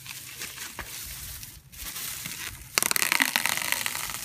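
Microfiber towel rubbing over car paint, wiping off Plasti Dip overspray: a steady rubbing noise that gets louder about three seconds in.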